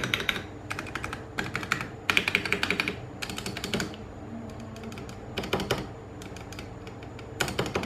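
Vortex POK3R mechanical keyboard with Gateron Brown switches, its stabilized keys being pressed in about seven quick bursts of clacks. The lubed stabilizers are not all perfectly tuned and let some rattle through.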